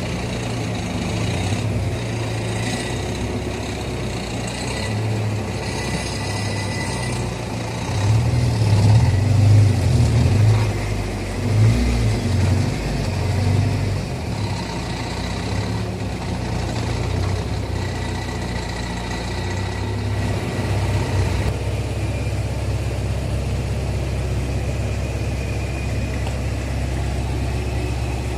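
Car engine idling steadily, with a few louder swells in engine sound between about 8 and 14 seconds in.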